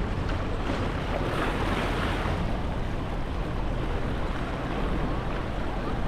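Small ocean waves washing onto a sandy beach, with one louder wash swelling and fading about a second in, over a steady rumble of wind on the microphone.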